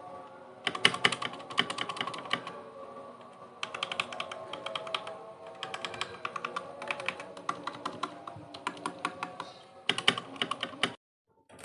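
Typing on a mechanical keyboard fitted with DANGKEY switches: fast runs of key clicks in several bursts with short pauses between, cutting off abruptly near the end.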